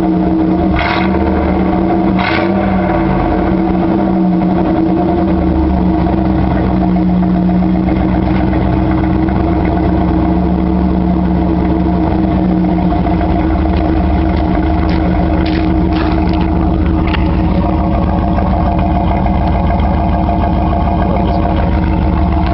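1988 Pontiac Firebird Trans Am's 350 cubic-inch V8 running steadily through straight pipes, loud, with no big revs. A few short clicks about a second in, at about two seconds, and again a little past the middle.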